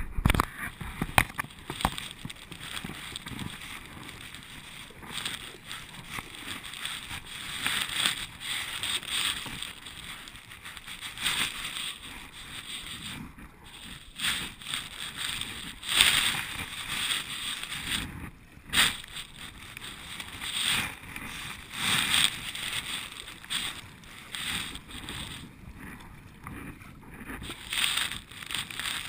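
Water splashing and lapping against a kayak's hull as it is paddled across choppy water, the wash swelling and easing in an uneven rhythm every second or two with the paddle strokes.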